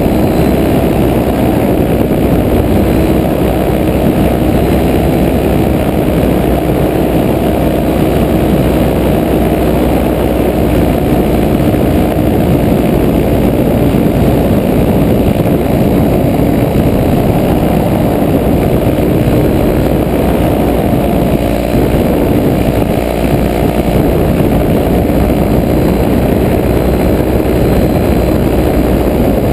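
Paramotor engine and propeller running at a steady cruising throttle, heard up close from the flying craft, with a constant drone and no change in pitch.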